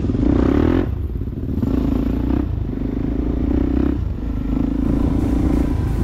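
Dirt bike engine accelerating from on board the bike: four pulls of revving, each broken off by a short dip, as at gear changes.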